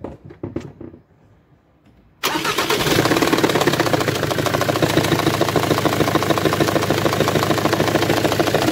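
A few light clicks, then about two seconds in the Jaguar X-Type 2.0d's Ford four-cylinder diesel engine starts and runs with a loud, rapid clatter. The noise comes from a badly damaged cylinder head that needs replacing.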